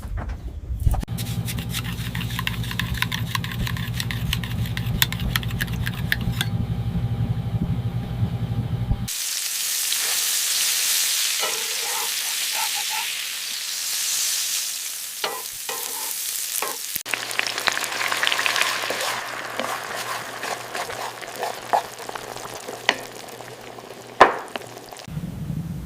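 Beef frying in a pan: sizzling, with stirring and scraping. It comes in several stretches, with a loud steady hiss in the middle and a low hum under the first and last parts.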